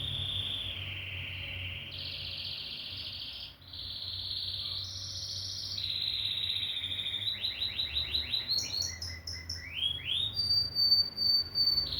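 Domestic canary singing: a run of fast trilled rolls, each held for a second or two before jumping to a new pitch, then a string of quick rising chirps and a long high whistled note near the end.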